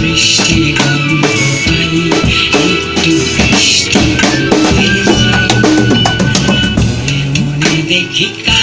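Drum kit played in a steady groove (bass drum, snare and cymbals) along with other pitched instruments holding sustained notes.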